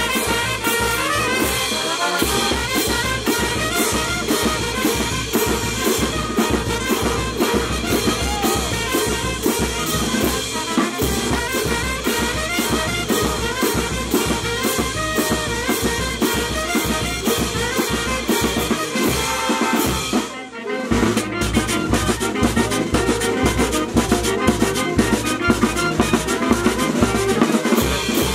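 Peruvian brass band (banda orquesta) playing: trumpets and sousaphones over a bass drum, snare drum and cymbals keeping a steady beat. The music breaks off briefly about twenty seconds in, then the full band comes back in.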